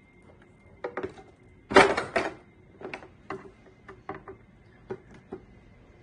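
Hard plastic container knocking and clicking as it is handled while a hot soldering iron is pushed through it to melt holes. A loud cluster of knocks comes about two seconds in, then single clicks about every half second.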